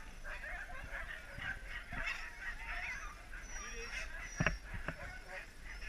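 Harnessed sled huskies yipping and whining, with many short, high calls overlapping. Two sharp thumps come about two and four and a half seconds in.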